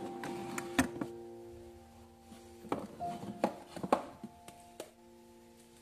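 Background music with held notes, over short clicks and knocks of lidded plastic food containers being handled and lifted off a shelf. There is one sharp click near the start and a quick run of knocks in the middle.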